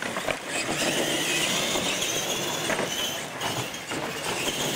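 Radio-controlled monster trucks racing at full throttle, motors and gears whining, with a few knocks as a truck hits a ramp and lands.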